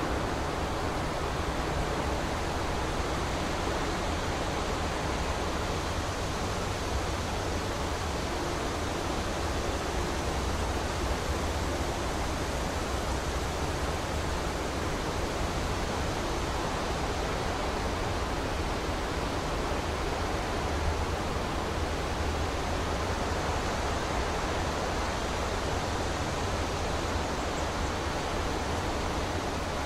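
Steady, even rushing noise with no distinct events, heaviest in the lowest range.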